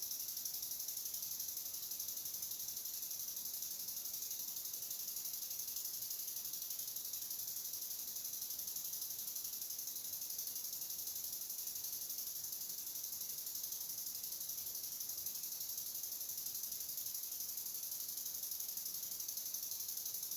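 Steady high-pitched hiss that stays unchanged throughout, with almost nothing in the low range.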